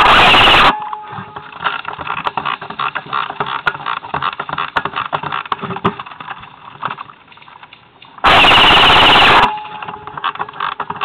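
Classic Army SPR airsoft electric rifle firing two rapid bursts, very loud from the camera mounted on the gun: one ends under a second in and the other comes about eight seconds in. Between the bursts there are scattered clicks and rustles of handling and movement.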